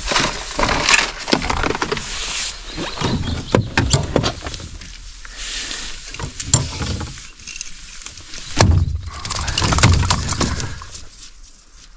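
Handling noise of fishing gear in a boat: rattling in a plastic tackle box, then the rustle of a landing net and clicks of a metal tool as a stuck lure is worked free of a fish in the net. There are many sharp clicks and clatters, with a few heavier dull knocks a little past the middle.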